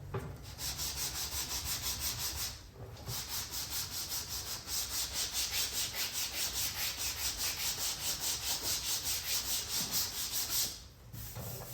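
80-grit sandpaper on a flat sanding block rubbed back and forth over glaze putty on a car door, in even strokes about three a second. There is a short pause about two and a half seconds in, and the sanding stops near the end.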